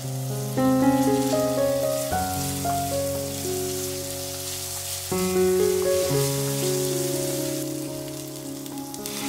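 Chopped carrots and onion sizzling in oil in a nonstick frying pan as they are stirred with a wooden spatula, with a steady hiss, under background piano music.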